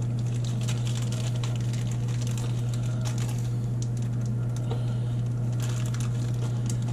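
A plastic zip-top bag holding small blocks of homemade skate wax being handled and worked open, giving faint scattered crinkles and ticks over a steady low background hum.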